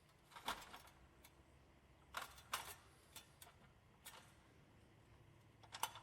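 A few faint, sharp clicks and knocks scattered over near silence, with a quick cluster of them near the end.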